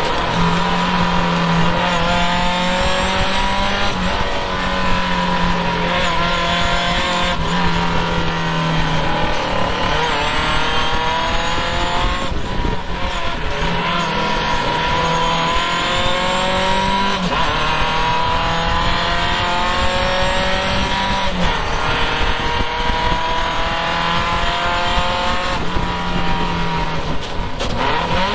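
Triumph vintage race car's engine heard from the open cockpit, revving up again and again as it pulls through the gears and dropping in pitch at each shift and lift, over steady wind rush.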